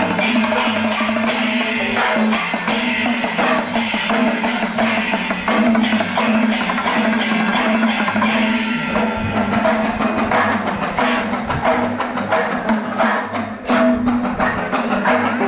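Kerala temple festival percussion ensemble playing: rapid, dense drumming with cymbals, and a steady held tone beneath.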